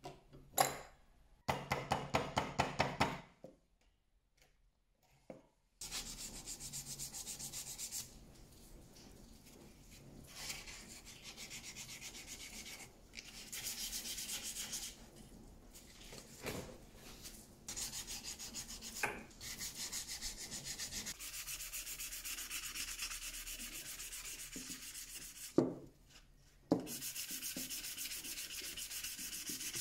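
Wooden knife handle being sanded by hand with sandpaper, quick back-and-forth rubbing strokes that stop and start in spells, with two sharp knocks near the end.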